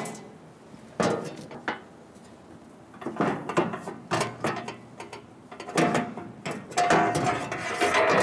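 A cordless power tool briefly spinning a 16 mm bolt out of a grader's steel access panel, followed by clicks, clanks and scrapes as the loose sheet-metal panel is lifted off and set down, the panel ringing faintly near the end.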